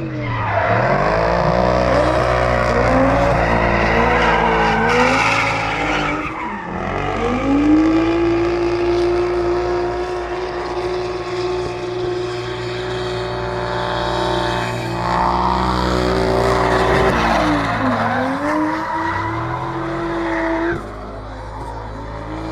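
Drift cars at high revs with tyres squealing through sustained slides; the engine pitch drops sharply and climbs again about six seconds in and again near eighteen seconds, and the loud tyre hiss falls away shortly before the end.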